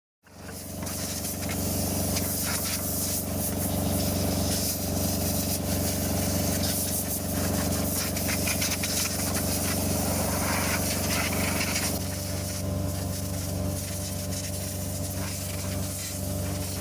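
Pneumatic needle scaler (needle gun) hammering on rusty steel, a loud steady buzzing rattle that starts abruptly. It drops slightly in level and pitch about twelve seconds in.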